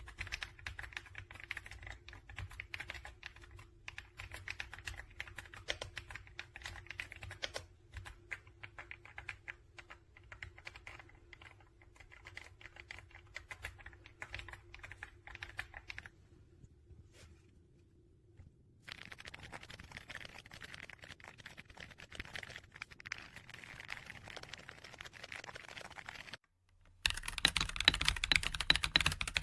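Rapid typing on a mechanical keyboard with Akko V3 Penguin silent tactile switches, dense key clicks in three runs broken by short pauses; the last run, near the end, is noticeably louder.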